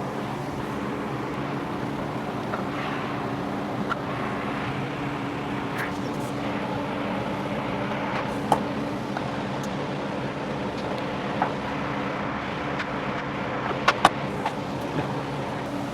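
A few sharp metallic clicks and knocks of hand tools working the 8mm bolts on a Jeep's front splash guard, with a close pair near the end. Under them runs a steady low mechanical hum.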